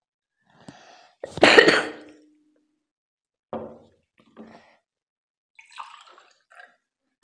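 Close-miked eating sounds: wet chewing, smacking and slurping in short separate bursts, with one loud burst about a second and a half in.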